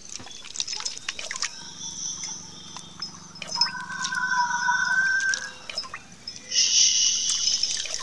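Water trickling and dripping, with many sharp drip clicks. High, steady whistling tones come and go over it, with a brighter high sound near the end.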